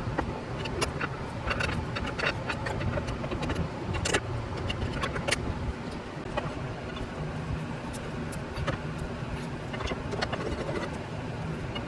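Irregular metallic clinks and taps of hand tools working a stuck sway bar link loose, a couple of sharper knocks about four and five seconds in, over a steady low hum.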